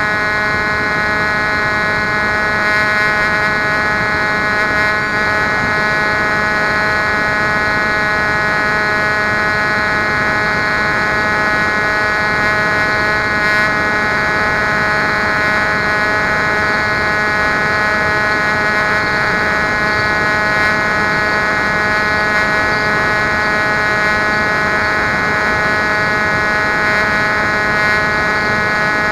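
Electric motor and pusher propeller of a Bixler foam RC plane whining at a steady pitch, heard from the plane's own onboard camera, over a rushing hiss.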